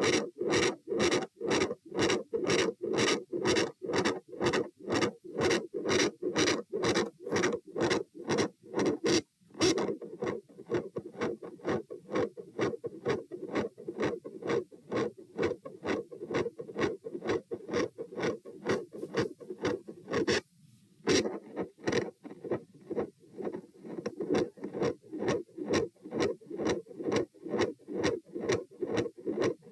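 Heart sounds picked up by a stethoscope probe on the chest: a regular train of heartbeats with a continuous murmur running between them and an extra click close to the second heart sound. The sound cuts out briefly twice, about nine and about twenty seconds in, as the probe is moved.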